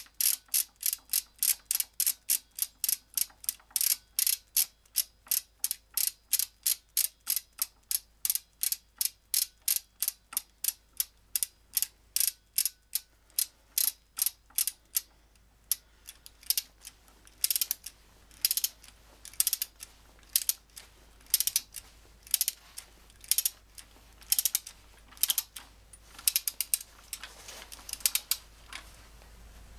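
Socket ratchet clicking as it turns an oil pump mounting bolt: an even run of about three clicks a second, breaking into shorter, uneven bursts of clicks about halfway through.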